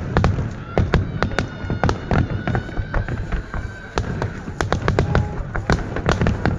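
Fireworks finale: a rapid, continuous volley of shell bursts and sharp cracks over a heavy low rumble, with music playing underneath.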